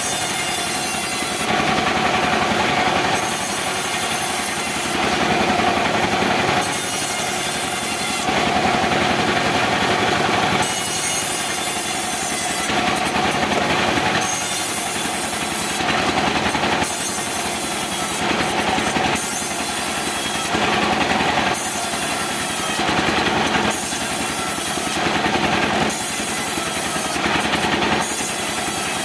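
Portable chainsaw running continuously while cutting into wood, its motor holding a steady pitch, with a sharper hiss coming and going every second or two as the chain bites.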